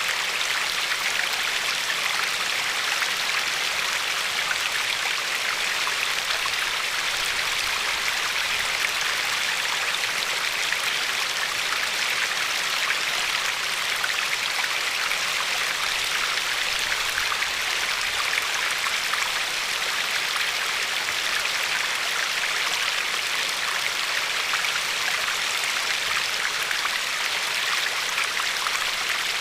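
River water flowing and lapping over a pebble shore: a steady, even rushing flecked with small splashes.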